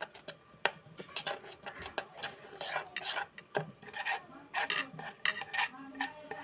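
A spoon beating thick rice and chana dal batter in a metal pot, scraping and clicking against the pot's sides in quick, irregular strokes.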